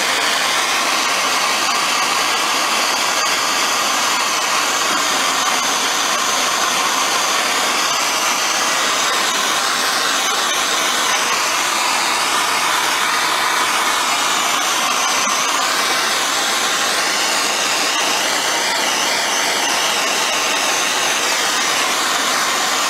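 MAPP gas blowtorch burning with a steady hiss, its flame held on a seized carburettor top to heat it loose.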